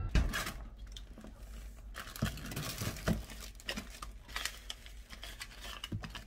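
Plastic grocery and zip-lock bags crinkling as food is set down on a kitchen counter, with a few light knocks as plastic storage containers are placed on a plastic cutting board.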